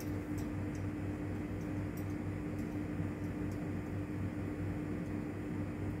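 Steady machine hum: a constant low tone over a lower drone that pulses evenly about three times a second.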